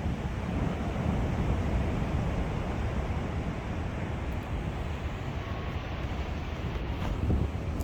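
Steady low rumble of wind buffeting the microphone, over the wash of small waves on the shore.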